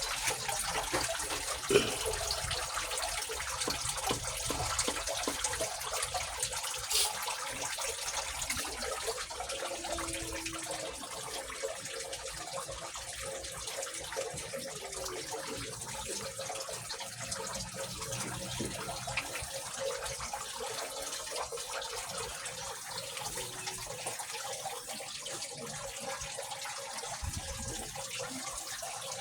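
Steady hiss that runs without a break and eases slightly after about ten seconds, with a single sharp tick about two seconds in.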